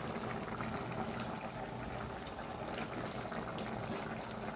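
Chicken curry simmering in a stainless-steel pot: a steady bubbling with many small pops and crackles.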